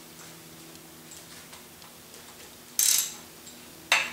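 Hand socket ratchet clicking as an engine's oil pan bolts are backed out: faint light ticks at first, then two short, loud bursts of rapid ratcheting about three and four seconds in.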